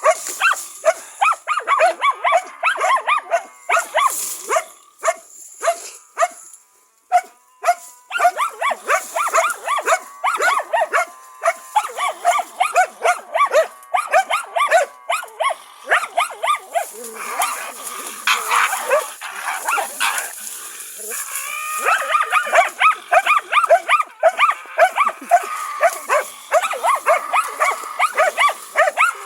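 Karelian-Finnish Laikas barking rapidly and almost without pause while baying a raccoon dog, with a short lull about a quarter of the way in.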